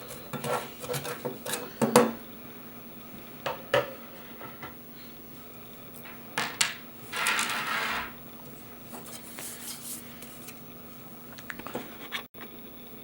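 Scattered metallic clicks, clinks and knocks, with a brief scrape about seven seconds in, as drive trays and parts are handled in a computer case's drive cage.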